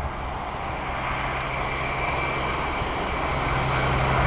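CrossCountry Voyager diesel multiple unit approaching, its underfloor diesel engines humming steadily and the sound of the train growing louder as it nears.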